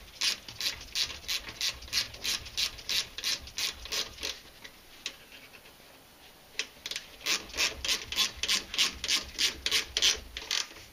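Ratchet wrench clicking in a steady run, about four clicks a second, as the long caliper bolts of an MTD lawn-tractor disc brake are run down into the aluminum transaxle case. The clicking pauses about four seconds in and starts again about two seconds later.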